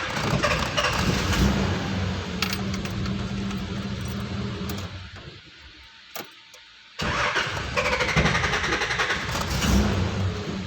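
Carbureted petrol engine of a 1990 Nissan Safari running after a no-start fault was fixed, its carburetor mixture freshly adjusted. It runs steadily, drops away about five seconds in, and starts up again suddenly about two seconds later.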